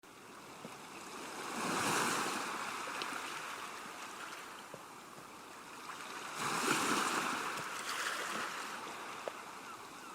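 Ocean surf breaking and washing on a beach, swelling twice, once about two seconds in and again about seven seconds in.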